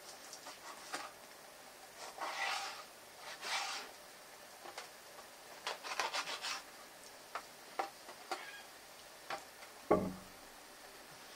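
Kitchen knife cutting raw chicken on a plastic cutting board: light taps of the blade on the board, with two longer scraping slicing strokes early on. There is one louder knock of the knife on the board near the end.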